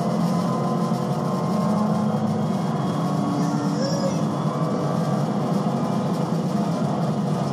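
Inside the cabin of a 2018 Dodge Challenger SRT Demon at high speed, its supercharged V8 pulls hard in a high gear. The engine drones steadily under road and wind noise as the car accelerates past 150 mph.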